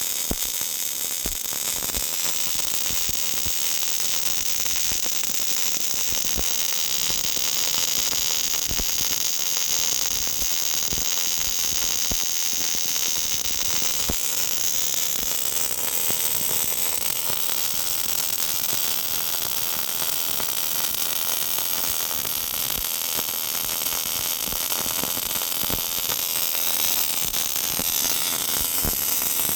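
Robotic MIG welder laying a continuous weld: a steady, loud arc hiss with irregular crackling throughout.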